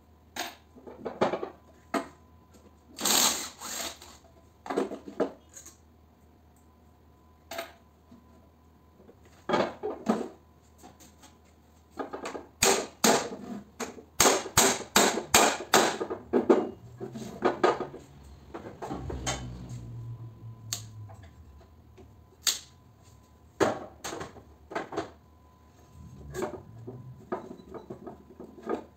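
Hammer blows on an electric motor's casing, knocking the housing apart during disassembly: scattered knocks and clanks, then a quick run of sharp metal strikes about three or four a second near the middle, with more knocks near the end.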